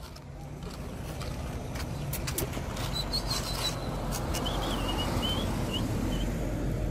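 A car approaching along the street, its engine and tyre noise growing steadily louder, with a few short bird chirps about halfway through.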